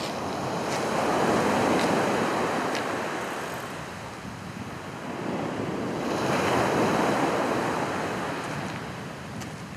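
Sea waves breaking and washing up the beach, swelling twice a few seconds apart. This is surf near the top of the tide.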